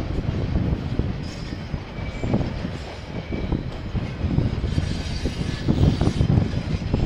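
KiwiRail train rolling past: an uneven rumble of wheels on the rails, rising and falling in short surges.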